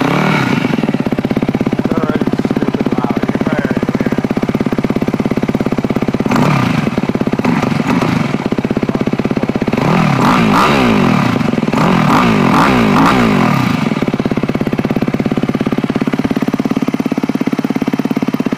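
2006 Yamaha WR250F's 250 cc four-stroke single-cylinder engine, breathing through an FMF PowerCore 4 exhaust with its silencer insert fitted, catching at the start and then idling. It is revved up and back down three times, once about six seconds in and twice between ten and fourteen seconds, then settles back to a steady idle.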